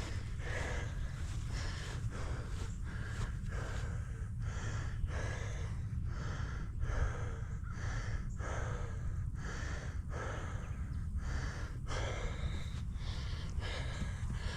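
A person breathing hard and rhythmically, in and out about once or twice a second, tired after a long climb, over a steady low rumble of wind or handling on the microphone.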